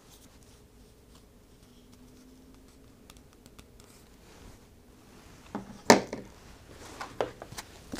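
Cards and game pieces handled on a tabletop: quiet for about five seconds, then a sharp tap about six seconds in, followed by a few lighter clicks.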